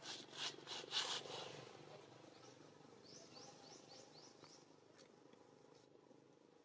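Animal calls: a run of about six quick, high chirps, each rising in pitch, a couple of seconds in. They come after a few short noisy bursts at the start.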